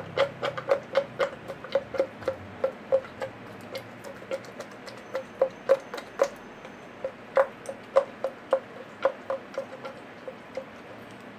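Rapid run of short wet clicks and squelches, about four a second and uneven in strength, from the black pudding filling being squeezed by hand down the intestine casing. It stops near the end.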